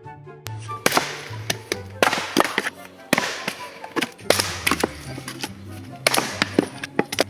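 Background music with a steady low bass line. From about half a second in, irregular sharp knocks and bangs are heard over it, several a second at times.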